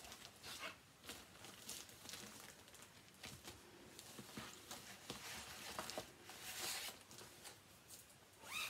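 Faint rustling and soft handling noises of cross-stitch projects and their fabric project bags being moved about, with a few light knocks and a denser rustle about two thirds of the way through.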